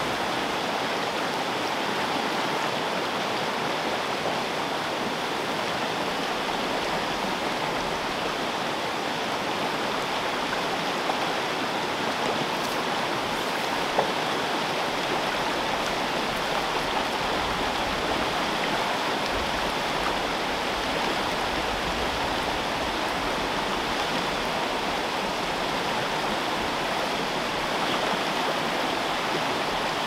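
Small creek rushing over rocks, a steady wash of whitewater, the water running faster than normal.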